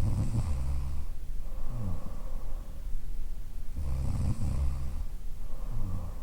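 A woman snoring in her sleep. Two full breathing cycles about four seconds apart, each a long, low snore followed by a shorter, fainter one.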